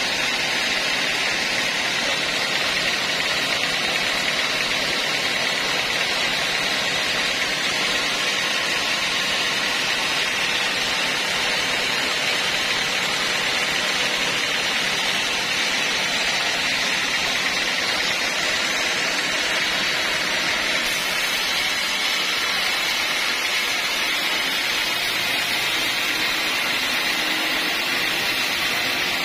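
Homemade band sawmill running steadily at an even level, a constant whir with no pauses, getting a little brighter about two-thirds of the way through.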